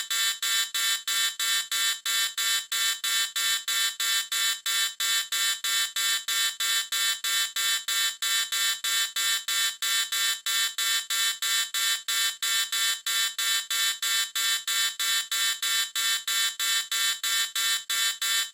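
High-pitched electronic alarm beeping rapidly and steadily, about four beeps a second.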